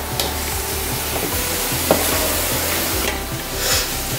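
Wooden spatula stirring and scraping grated coconut filling in a hot frying pan, with a steady sizzle. The filling is being cooked down until its water has gone. One sharp knock comes about two seconds in.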